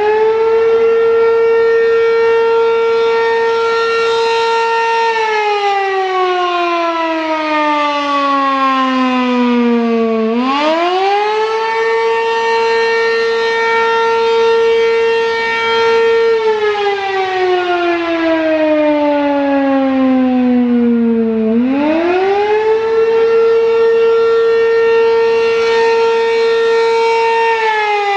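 American Signal Corporation RM-127 single-tone Penetrator siren sounding the attack signal. Its tone climbs quickly, holds high for about five seconds, then slowly falls; this happens three times, with new climbs about ten and twenty-one seconds in.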